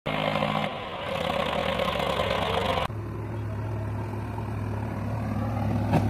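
Diesel engines of a Mahindra tractor and a JCB 3DX backhoe loader running at a dig site. About three seconds in, the sound changes suddenly from one engine note to a lower, steadier hum.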